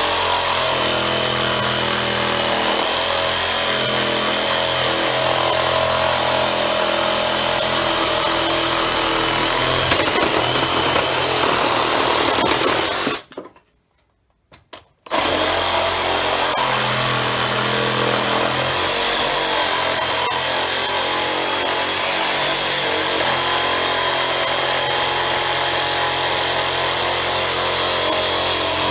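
Black+Decker BDCR18N 18 V cordless reciprocating saw running and cutting through a thick pressure-treated wooden post with a wood blade. The saw stops briefly near the middle, then starts again and keeps cutting.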